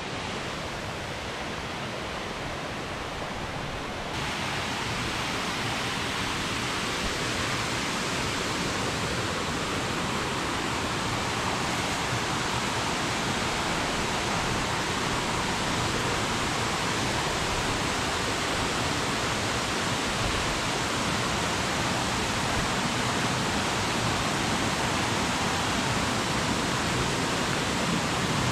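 Steady rush of water from a rocky creek and waterfall, growing a little louder and brighter about four seconds in.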